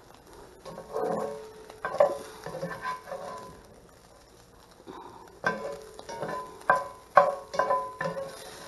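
A slotted spatula scraping and knocking against a cast-iron skillet as chicken pieces are lifted out and tipped into a plastic bowl. The knocks come in two bunches, each leaving the pan briefly ringing.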